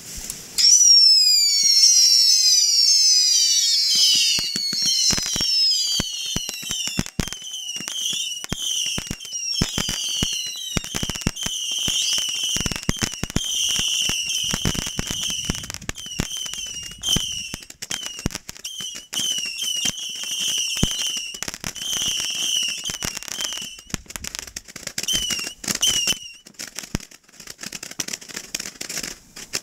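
Ground-launched fireworks firing: a sudden loud volley of shrill whistles dropping in pitch, then a long run of short repeated screaming whistles over rapid pops and crackling. The opening volley is the loudest part, and the whistling dies out a few seconds before the end, leaving scattered pops.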